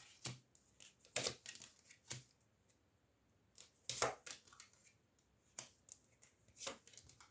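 Tarot cards being handled and laid out on a table: a handful of short, scattered snaps and rustles, about six over several seconds.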